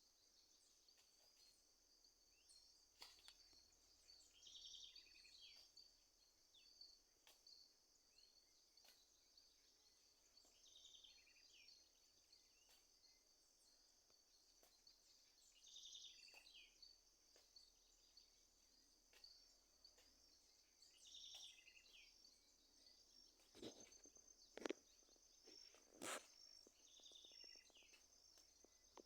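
Faint evening ambience: insects keep up a steady high-pitched trill while a bird gives a short chirping call about every five to six seconds. Three sharp clicks come about three-quarters of the way through.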